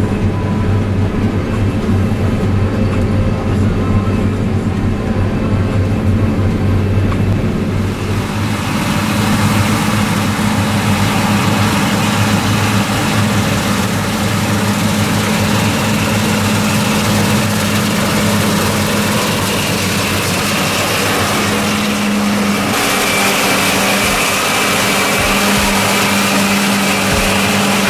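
A motor vehicle running steadily, its engine humming low, with a broad hiss of road or wind noise that grows stronger about a third of the way in.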